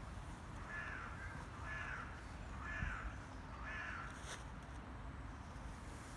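A crow cawing four times, about a second apart.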